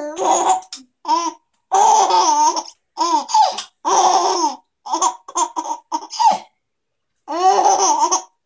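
A baby laughing in a string of high-pitched bursts with short pauses between them.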